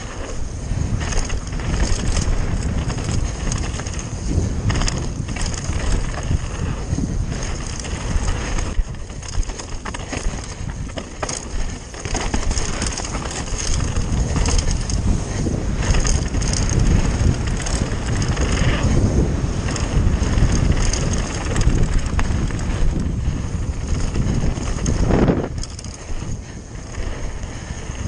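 Mountain bike riding fast down a rocky, loose-stone trail: tyres crunching over gravel and the bike rattling over bumps, under a steady low rumble of wind on the camera microphone. Near the end, one harder knock as the bike hits something.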